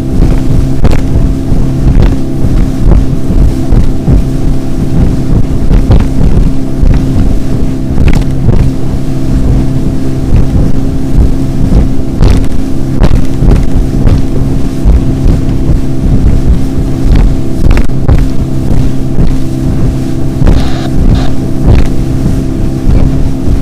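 Motorboat engine running steadily at high speed, with irregular thumps and splashes every second or two as the hull slams over the chop.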